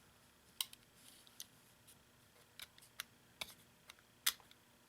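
Small tools clicking against and into the slots of a Victorinox Swiss Card's plastic case: about eight sharp, irregular clicks, the loudest about four seconds in.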